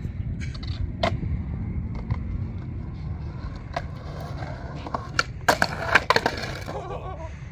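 Skateboard wheels rolling on concrete with a steady rumble and occasional clacks. About five seconds in comes a cluster of sharp knocks and scrapes as the board pops up onto a concrete ledge, slides on it and comes down.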